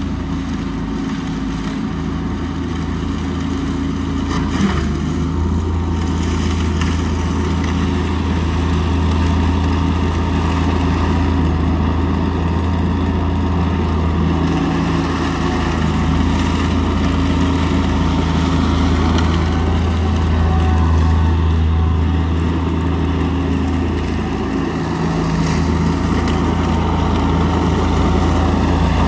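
Amazone Profihopper 4WDi ride-on mower-collector running steadily as it picks up leaves, a low engine hum with a faint higher whine, growing louder as it comes closer. One brief knock about five seconds in.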